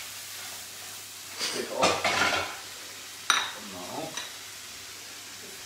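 Spinach sizzling in a frying pan on a gas hob with a steady low hiss, with a clatter of pan and utensil handling about two seconds in and a sharp metallic knock a little after three seconds.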